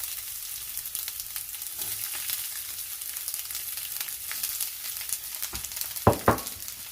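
Onion sizzling and crackling in hot olive oil in a saucepan, a steady frying hiss. Two loud knocks come about six seconds in.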